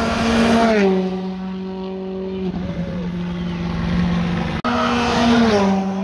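Rally car engines at speed on a tarmac special stage, two cars one after the other. Each engine note drops in pitch as the car goes by, the first just under a second in and the second near the end, after a short break about four and a half seconds in.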